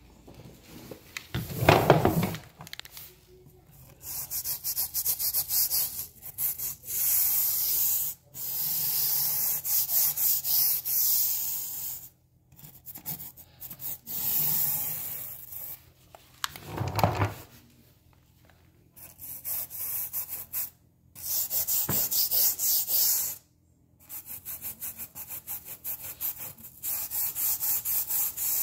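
The bristle tip of a grout colour-sealer applicator bottle is scrubbed quickly back and forth along the grout lines of a ceramic tile floor. The scratchy strokes come in stretches of a few seconds with short pauses between. Two louder, deeper bumps are heard, one about two seconds in and one past the middle.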